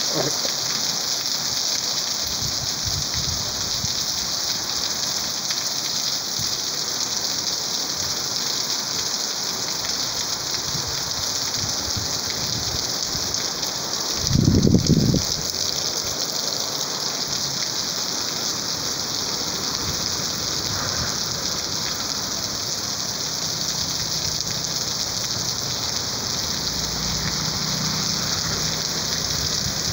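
Rain falling steadily on a street and pavement, an even hiss of drops. About halfway through a brief louder low rumble stands out, and near the end a car goes by on the wet road.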